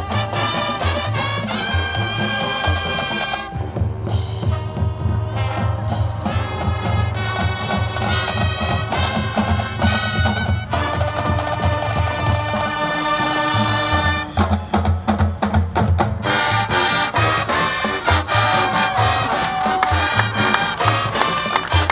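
High school marching band playing, with trumpets, trombones and other brass carrying the tune over marching percussion. The drum strokes come thicker in the last few seconds.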